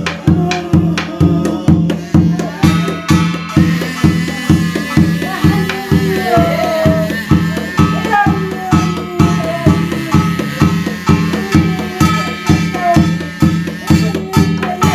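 Korean barrel drum (buk) beaten with a padded mallet in a steady beat of about two strokes a second, with gongs on the drum frame struck alongside. A wavering melodic line sounds above the drumming, as in shamanic sutra chanting (gyeongmun).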